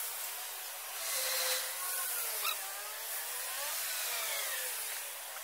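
LPG autogas dispenser pumping gas into a car's tank: a steady hiss with a faint, wavering whine.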